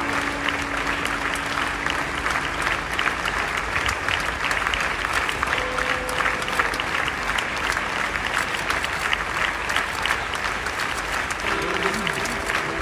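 A large crowd clapping steadily in sustained applause.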